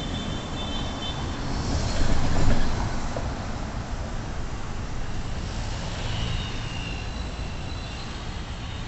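Busy city-avenue traffic noise, with a vehicle passing close by and swelling loudest about two seconds in. Faint, brief high squeals sound near the start and again later.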